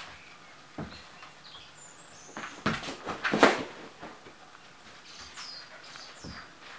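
Dogs and puppies playing on a wooden floor: scattered knocks and scuffles, the loudest cluster of sharp sounds about three seconds in, with a few faint high chirps between them.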